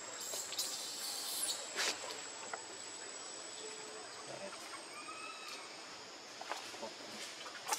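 Steady high-pitched drone of forest insects. A few sharp clicks and rustles in the first two seconds, and a faint short call about five seconds in.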